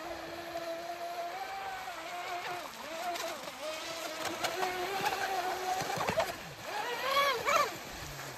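Brushless motor of an RC speedboat (4074 2250 kV on 6S) running on the water with a steady tone that wavers slightly in pitch. Near the end it sweeps up and back down in pitch twice.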